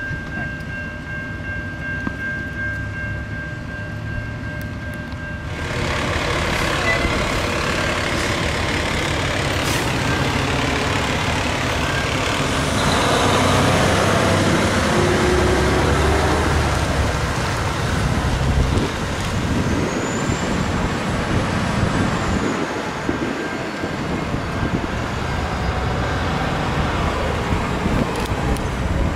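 Fire trucks driving past on a street, their heavy diesel engines running amid tyre and traffic noise; this grows louder about six seconds in. Before that, a quieter steady rumble with a faint high steady tone.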